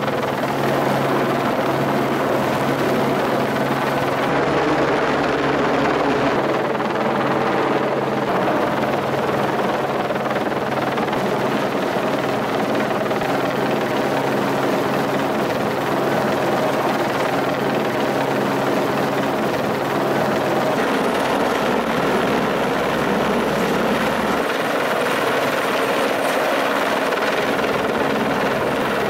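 Helicopter hovering with a load slung on its long line, its rotor and engine running steadily.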